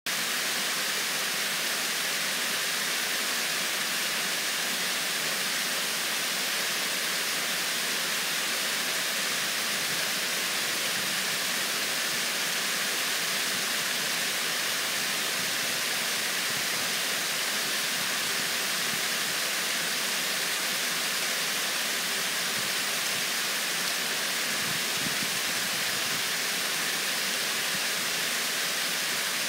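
Water pouring over a curved concrete spillway and splashing into the foaming pool below, swollen by rainfall: a steady, even rush with a bright hiss.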